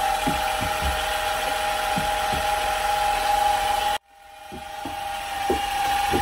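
A motor-driven paint sprayer pump running steadily with a constant whine, cutting out suddenly about four seconds in and then starting again. Faint soft knocks come from a stick stirring white shading paint in a bucket.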